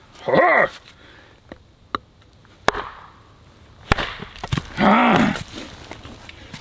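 Mil-Tec mini hatchet chopping into a knotty piece of firewood on a chopping block: two sharp strikes about a second apart in the middle, the second driving the blade in and leaving it stuck. A man's short vocal sounds come near the start and just after the strikes.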